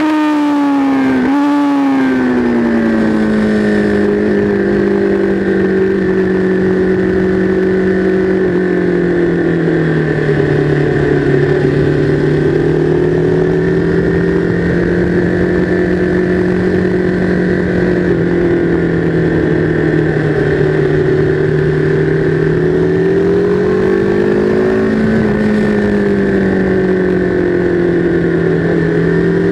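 Sport motorcycle engine heard from on board at track speed, with wind rush. In the first couple of seconds the engine note drops, with a short break, as the rider brakes and shifts down. It then holds a steady mid-range note through the corners, with a brief rise and fall near the end.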